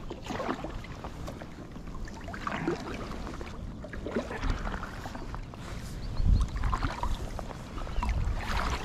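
Light knocks, clicks and rustling of gear being handled aboard a kayak, with low rumbling in the second half.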